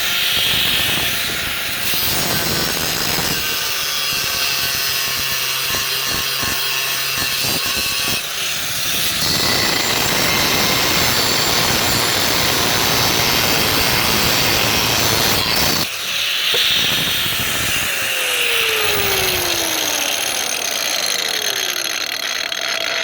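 Angle grinder fitted with a Millner-Haufen electroplated diamond wheel, grinding continuously with a harsh grinding noise. The motor's pitch shifts as the load changes, with a brief let-up about 16 seconds in.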